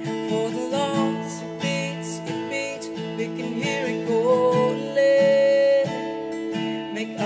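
A man singing a worship song to his own strummed acoustic guitar, with a synth pad behind, recorded through a USB condenser microphone. About five seconds in he holds one long, loud note.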